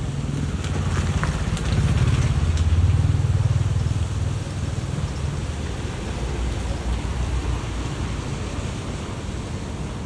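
Outdoor ambience: a steady low rumble with a hiss over it, swelling louder about two to four seconds in, with a few faint high ticks or chirps early on.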